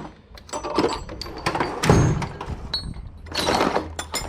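Hand tools being handled: a series of metallic clinks and knocks with brief ringing, and a heavier thump about two seconds in.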